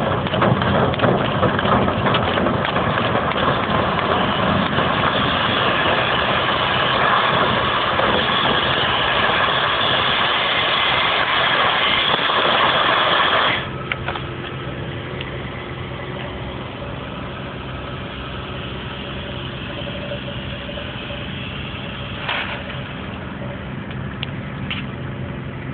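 A motor-driven machine running steadily with a loud rushing noise over a low hum. About halfway through, the rushing cuts off suddenly and a quieter, steady hum continues, with one brief burst of noise near the end.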